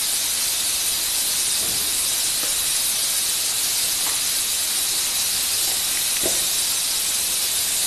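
Tomato, ginger and garlic masala sizzling in oil in a kadhai as it is fried down, a steady hiss with a few faint pops.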